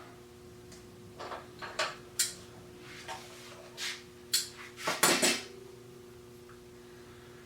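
Metal clinks and knocks of hand tools against edger wheel parts: a scatter of sharp hits, loudest in a cluster about five seconds in. A steady low hum runs underneath.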